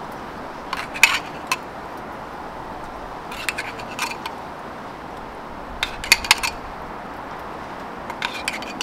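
Metal cooking utensils clinking and scraping in four short clusters, about two seconds apart, over a steady hiss.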